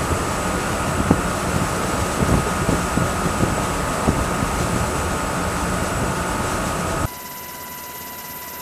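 Steady rushing wind and engine noise recorded on the water, with a faint high whine and irregular low thumps of wind on the microphone. It cuts off abruptly about seven seconds in, leaving a quieter steady hiss with faint fixed tones.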